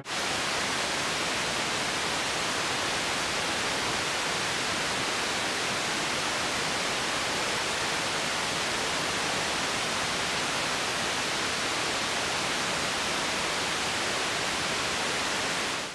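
A steady, unchanging hiss of static noise, with no tones or rhythm in it, cutting off abruptly near the end.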